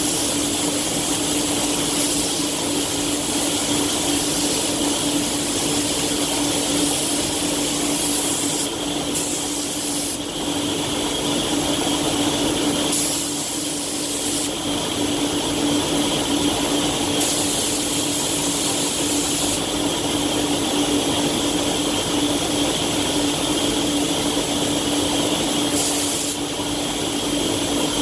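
Iwata Hakone spray gun hissing as it sprays clear coat, over the steady hum of spray-booth ventilation; the hiss brightens and fades several times as the gun works.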